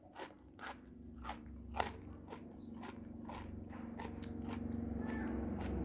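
Close-up crunchy chewing of raw vegetables: sharp crisp crunches about every half second, softening as the mouthful is worked down. A steady low hum grows louder underneath during the second half.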